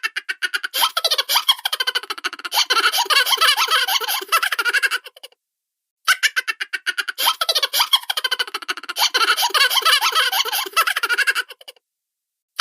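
High-pitched cartoon laughter sound effect: a rapid, pulsing giggle in two near-identical runs of about five seconds each, with a short pause between them.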